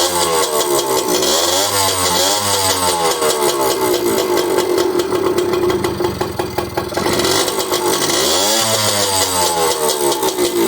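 Jianshe Coyote 80 dirt bike's two-stroke engine running on a newly fitted carburettor, its revs rising and falling several times as the throttle is blipped, holding steady for a few seconds in the middle, then rising once more. The engine is running on a baseline fuel-mixture screw setting while the carburettor is being tuned.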